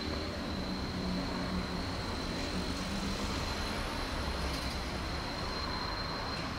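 Steady low rumble of distant road traffic in a city street at night, with a thin, steady high whine over it.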